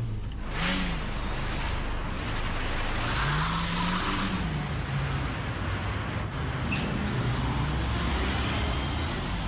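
Car engine revving up and easing off several times as the car is driven, over steady road and tyre noise.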